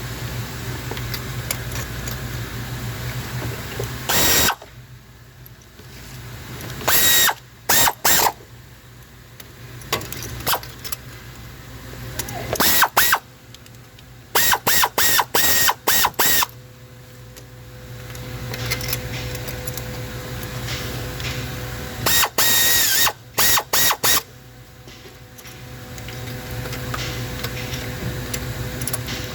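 Ford F-150 V8 engine running steadily, then stopping about four seconds in. After that come several short, loud mechanical bursts, separated by quieter pauses.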